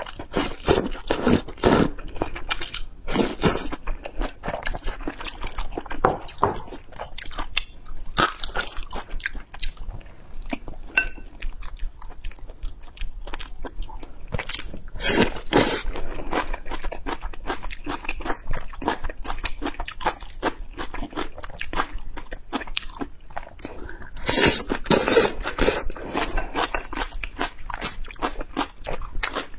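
Close-miked eating: wide noodles slurped from a bowl of soup, then chewing and biting into a pan-fried flatbread, with a steady run of small crunches and mouth clicks. The loudest bursts come at the start, near the middle and about three-quarters through.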